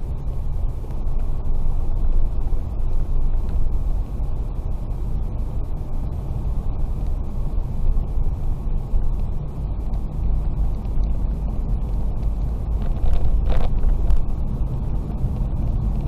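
Steady low rumble of a car's engine and tyres on a snow- and slush-covered road, heard from inside the cabin. A brief, sharper knock comes near the end.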